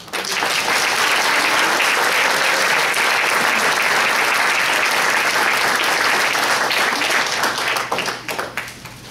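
Theatre audience applauding the end of a musical number. The applause breaks out at once, holds steady, then thins to scattered claps and dies away near the end.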